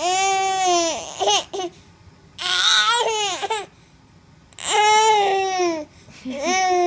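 A nine-month-old baby whining in four drawn-out, pitched cries of about a second each, each falling in pitch at the end: a grumpy fuss that sounds pitiful, which the mother takes for a bid for attention.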